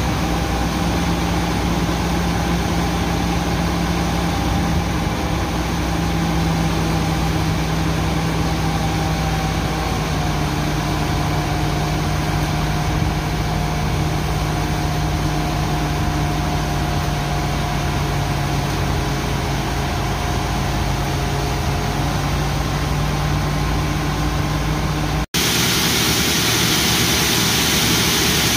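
John Deere T670i combine running steadily while harvesting corn: a constant engine and machinery drone with a few held tones. About 25 s in it cuts abruptly to a brighter, hissier machine noise.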